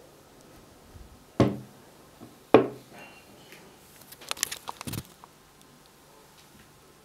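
Glass jar knocked down onto a wooden tabletop twice, two sharp thuds about a second apart, followed by a quick run of clicks and rattles as the jar is handled and laid on its side.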